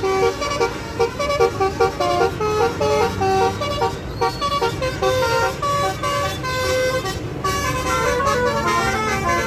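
Basuri telolet horn on a bus, a multi-tone air horn playing a fast tune of short, stepping notes.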